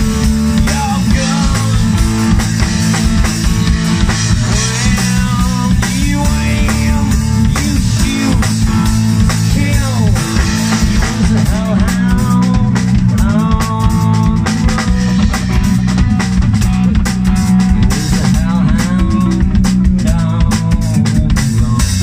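Live rock band playing: distorted electric guitar, electric bass and a Sonor drum kit, with guitar bends around the middle.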